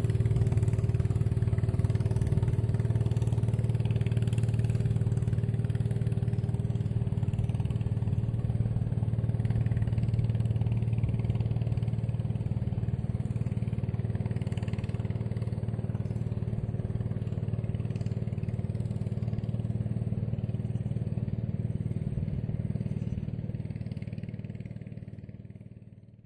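Steady low engine hum that does not change in pitch, fading out in the last couple of seconds.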